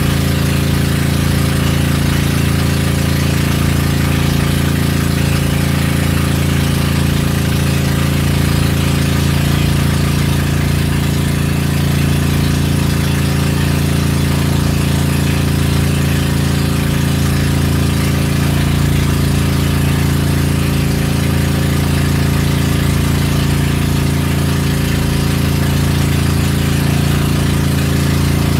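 Engine of a bangka outrigger boat running steadily under way, a loud, even drone, with a hiss of wind and water over it.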